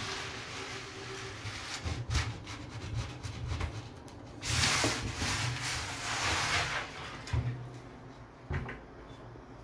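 Glass shower door being worked on its hinges, with a few knocks as the rubber bumper on the glass meets the clear corner protector on the sink edge, and longer rubbing sounds in between.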